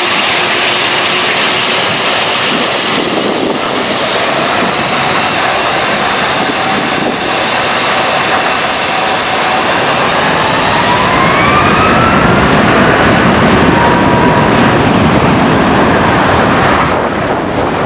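Boeing 757-200's twin turbofan engines at take-off power, the jet blast hitting the microphone as a loud, steady rushing noise. Engine whine tones rise in pitch about two-thirds of the way through as the jet accelerates away down the runway, and the noise eases off near the end.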